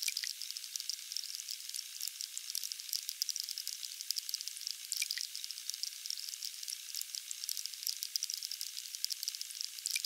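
Water trickling and splashing steadily from a small resin Buddha tabletop fountain, spilling from its lotus bowl into the basin. It is a thin, crackly patter with no low rumble and does not change.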